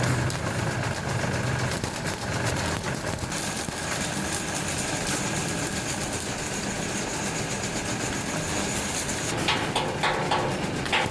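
Factory machinery running steadily with a low hum and a high hiss, then a quick series of sharp metal knocks near the end.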